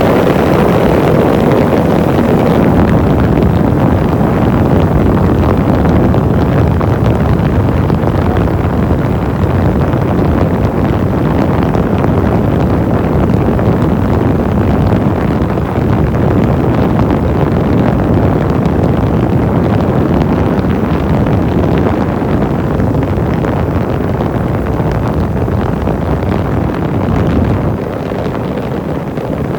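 Motorcycle moving at speed: a steady rush of wind on the microphone over engine and road noise, easing a little near the end.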